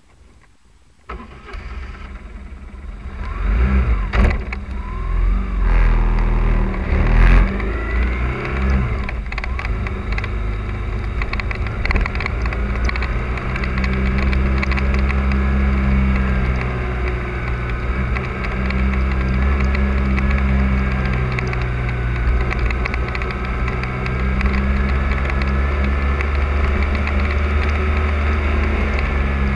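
Motorcycle engine, recorded from a camera mounted on the bike. It comes in abruptly about a second in, revs and pulls away with rising pitch through the first few seconds, then runs steadily at road speed with wind noise on the microphone.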